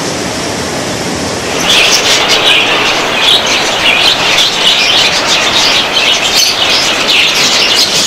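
A flock of caged budgerigars chattering: a dense, continuous mass of rapid high chirps and warbles that comes in strongly about two seconds in, over a steady hiss.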